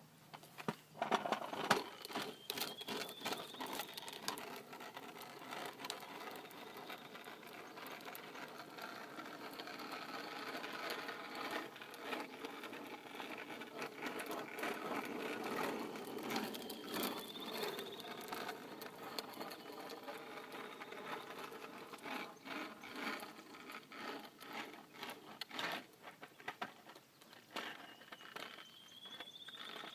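RipStick caster board's wheels rolling and rattling over pavement, a continuous whir full of small clicks and ticks. A bird's whistled call rises in pitch three times: a few seconds in, about halfway and at the end.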